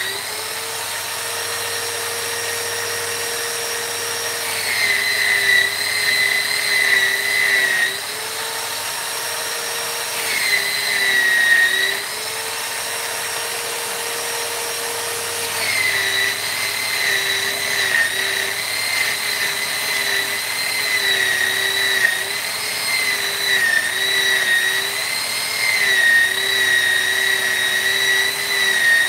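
High-speed rotary carving tool whining as it spins. It bogs down slightly and grinds louder each time it is pressed into the wood, three times: briefly, again, then steadily through the last half, and it spins back up freely in between.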